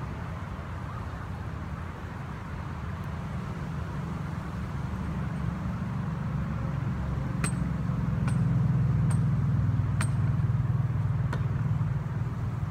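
A steady low rumble that grows louder through the middle and eases off near the end, with a string of sharp clicks about one a second in the second half.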